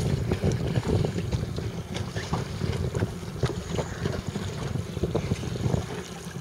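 Wind buffeting the microphone as a low, gusting rumble, with irregular small splashes and knocks of water.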